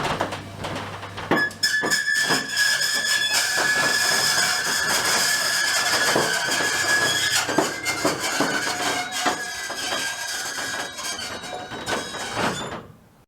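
Old roller garage door moving along its track, creaking and squeaking loudly with a steady high squeal and repeated rattling clicks, then dying away and stopping just before the end.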